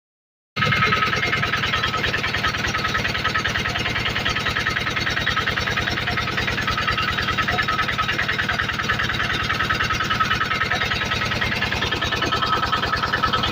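Generator engine running steadily with a fast, even pulsing; it starts abruptly about half a second in.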